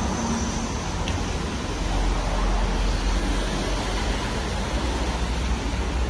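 Steady rushing noise with a heavy, uneven low rumble: wind buffeting a phone's microphone outdoors.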